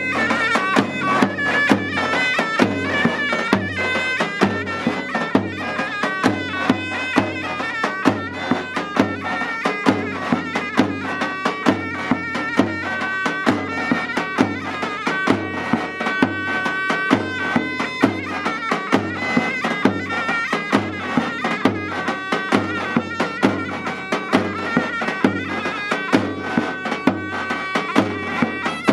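Davul and zurna playing a folk tune: the zurna carries a loud, reedy melody over regular strokes of the large double-headed davul drum, about two beats a second.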